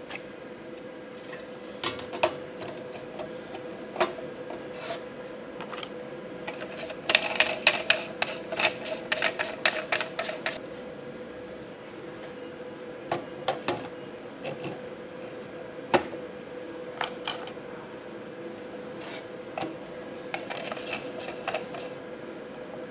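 Gauges and their plastic housings and mounting hardware being handled and fitted into a steel instrument panel on a steel workbench: scattered clicks, taps and rubbing. About seven seconds in comes a quick run of clicks lasting about three seconds. A steady faint hum sits underneath.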